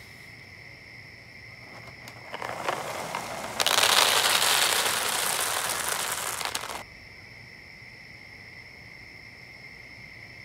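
A rustling noise builds about two seconds in, then a loud, dense crackling runs for about three seconds and cuts off suddenly. A faint, steady high-pitched whine sits under it throughout.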